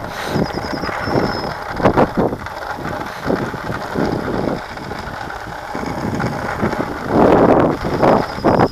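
Bicycles rolling along a path, with wind buffeting the microphone and a light mechanical ticking typical of a freewheel. A louder rush swells about seven seconds in.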